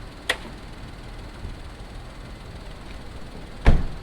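A car door shutting with a heavy thump near the end, after a short sharp click early on, over the low steady rumble of a vehicle.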